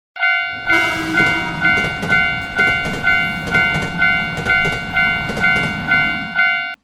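Japanese railroad crossing alarm ringing its repeated "kan-kan" bell, about two strikes a second, over the low rumble of a passing train. It starts and cuts off abruptly.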